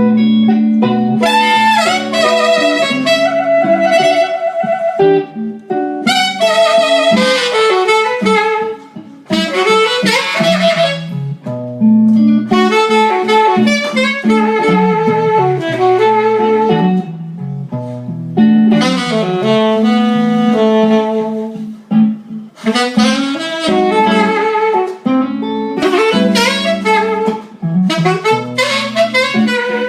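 Instrumental break in a slow blues-soul ballad: a saxophone plays melodic phrases over guitar and band accompaniment, with no singing.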